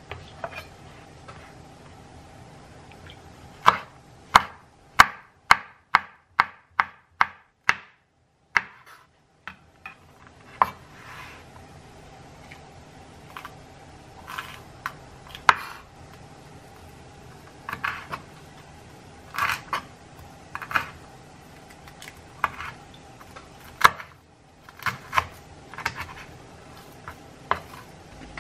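A nakiri knife chops chilies on a wooden cutting board. About four seconds in comes a quick, even run of about a dozen sharp knocks, some two a second, followed by slower, irregular chops.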